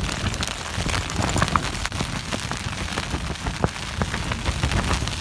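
Heard from inside a Coleman Darwin 2 tent in a storm: rain striking the flysheet as a dense, constant rattle of sharp drop hits, over a low, steady rumble of strong wind buffeting the tent.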